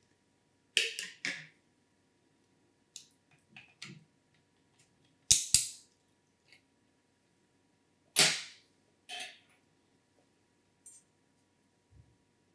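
Sharp clicks and knocks of PC hardware being handled while an AIO liquid cooler is fitted: a quick run of three about a second in, a close double click near the middle, and a louder knock a little later, with faint ticks between.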